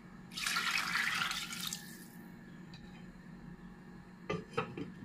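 Water poured from a bowl into a pot, splashing for about two seconds. About four seconds in come a few quick clinks as a glass pot lid is set on.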